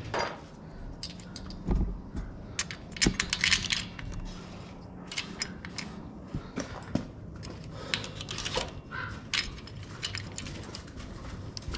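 Light metal clicks and clinks as a valve spring compressor tool and valve spring parts are handled and fitted on an LS engine's cylinder head. A quick run of clicks comes about three seconds in.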